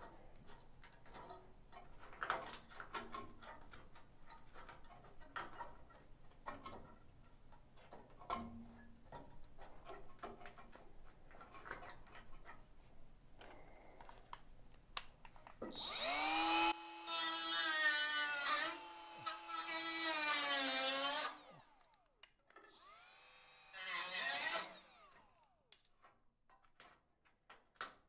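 Scattered crackles and scrapes from rusted steel being picked apart by hand. About two thirds in, a small cordless rotary tool with a cut-off wheel spins up to a high whine, its pitch wavering as it cuts into the rusted sheet metal of a VW bus's lower A-post, then winds down. A shorter second burst follows.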